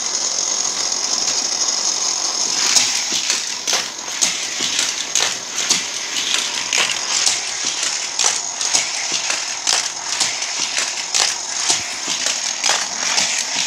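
Battery-powered booster of a Hot Wheels Power Shift Raceway toy track running with a steady high whine, while a die-cast toy car clatters through the plastic track with many quick clicks and rattles, which grow busier about three seconds in.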